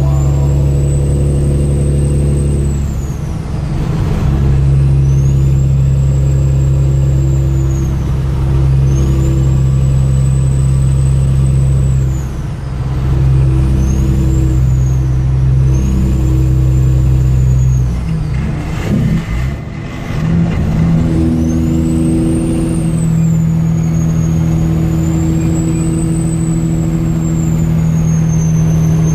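Kenworth W900L semi truck's diesel engine pulling steadily on the road. Its note dips briefly about four and twelve seconds in, and settles at a new pitch after a rough patch around nineteen seconds, with a thin high whistle rising and falling through the run.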